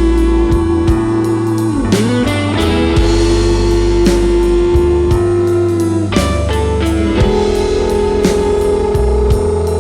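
Blues-rock band playing an instrumental passage: electric guitar holding long sustained notes that bend in pitch, over bass and a drum kit keeping a steady beat.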